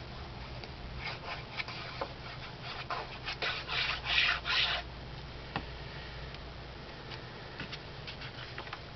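Cardstock rustling and rubbing against the table and other paper as pieces are handled and slid into place: a string of short scratchy rubs, loudest a little past the middle, then a few light taps.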